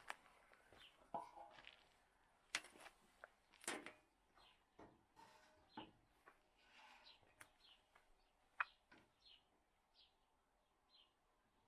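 Quiet, irregular knocks and clicks of hand work, with short high bird chirps scattered between them.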